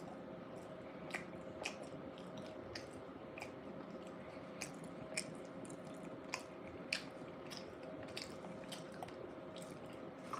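Close-up chewing of a soft bean burrito: quiet wet mouth smacks and small clicks, coming irregularly every half second or so.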